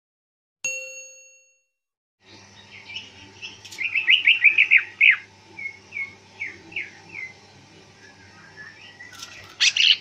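A bell-like ding that fades within about a second, then a greater green leafbird singing: a quick run of falling chirps, a few spaced single notes, and a louder burst near the end.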